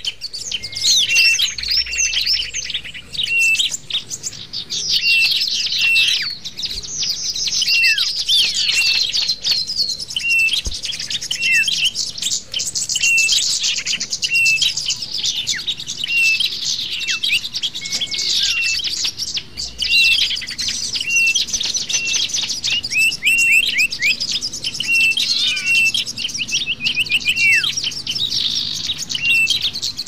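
Bird-lure (pikat) recording of many small songbirds chirping and trilling at once: a dense, high-pitched chorus of fast chirps, sweeping notes and rapid trills, with one short call repeated over and over underneath.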